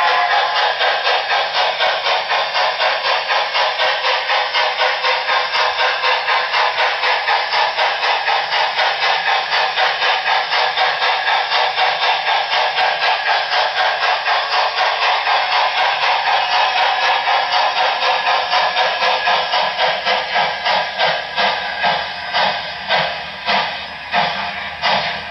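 Sound decoder of an HO-scale Broadway Limited Paragon 4 GS-4 steam locomotive model playing a steady steam exhaust chuff, a little over two chuffs a second. The chuffs slow and space out over the last few seconds as the locomotive comes to a stop.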